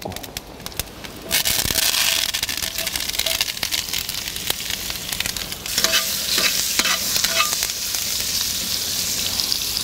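Carrot sticks sizzling in hot oil in a Weber cast-iron Dutch oven. The sizzle jumps up about a second in as they go into the pot. Tongs click and scrape against the pot as the carrots are stirred, and the sizzle grows louder again partway through.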